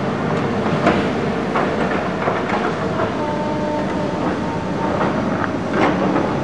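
Hydraulic excavators working in a cutting: diesel engines running steadily under load, with irregular clanks and knocks of buckets and tracks against rock and spoil, the loudest about a second in and again near the end.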